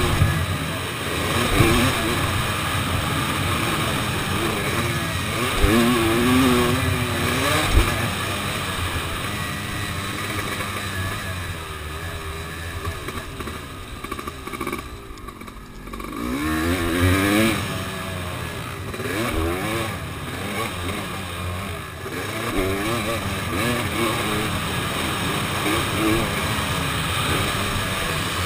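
Dirt bike engine revving up and down as it is ridden around a motocross track, heard from an onboard camera. About halfway through, the throttle is shut off for a moment, then the engine revs back up.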